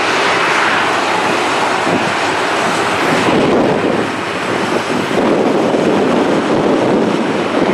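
Jet airliner engines running on the ground at an airport, a steady loud rushing noise that shifts in character about three to four seconds in.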